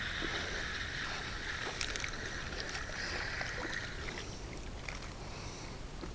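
Spinning reel cranked quickly to land a hooked fish, its gears whirring steadily until about four seconds in, then stopping as the fish splashes at the surface.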